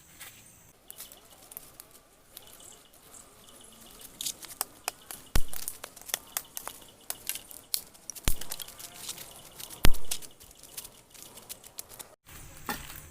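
Irregular sharp clicks and knocks, with three heavier thumps about five, eight and ten seconds in.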